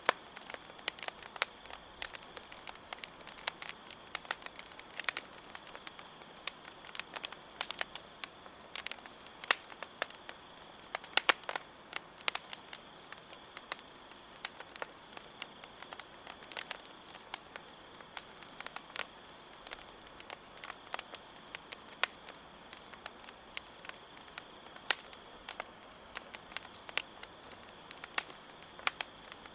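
Campfire crackling, with irregular sharp pops of wood, some louder than others, over a steady high-pitched chirring of crickets.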